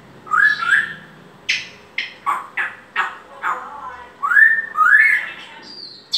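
African grey parrot whistling and calling. Rising whistles come near the start and again after about four seconds, with a run of short, sharp calls in between.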